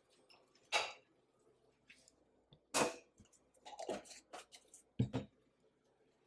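Kitchen handling noises: four short knocks and clatters spread over about six seconds, with quiet in between.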